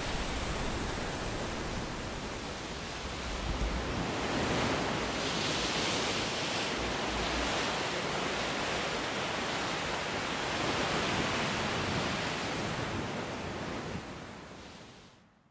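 Steady rush of sea surf and wind, swelling now and then as waves wash in, fading out near the end.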